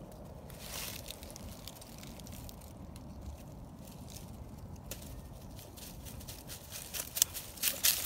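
Dry fallen leaves rustling and crackling underfoot in forest leaf litter, faint at first, with louder crunching steps in the last second.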